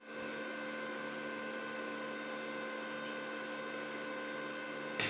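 Steady machine hum over an even hiss, holding several steady tones, with a sharp click about five seconds in.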